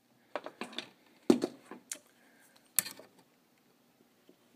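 Several sharp clicks and knocks of small hand tools and wire being handled at an amplifier chassis during wiring work, the loudest about a second and a half in, then quiet.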